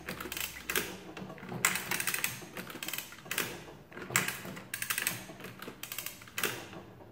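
A 1916 Burroughs Class 3 adding machine's mechanism clattering as its hand lever is worked. There are about six bursts of rapid metallic clicking from its sliders and register.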